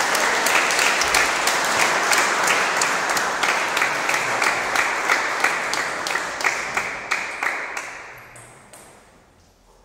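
Spectators applauding the end of a rally in table tennis, a dense patter of hand claps that fades away near the end.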